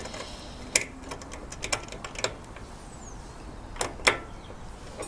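A hand tool clicking and tapping against the metal of a roof-rack gutter clamp as its top bolt is tightened, about six sharp clicks at uneven intervals.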